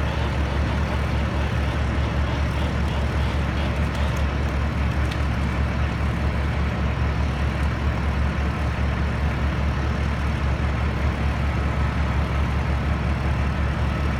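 Heavy diesel engine of a crane truck running steadily at constant speed, a deep even hum.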